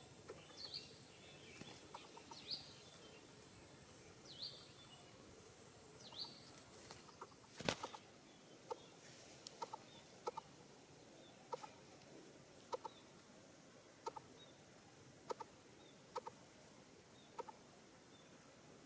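Faint bird calls: high, short falling chirps about every two seconds at first, then a sharp click, then a run of short, lower calls repeating roughly once a second.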